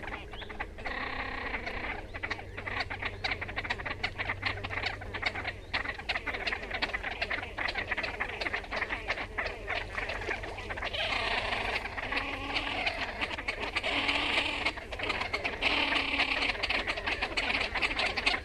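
Great crested grebe calling: a fast rattling, growling series of notes, repeated almost without pause and growing louder about halfway through.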